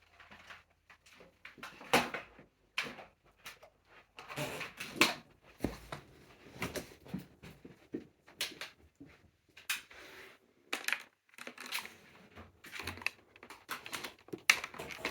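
Irregular clicks, knocks and rattles from handling the Dyson DC07 upright vacuum while its power cord is wound up; no motor is running.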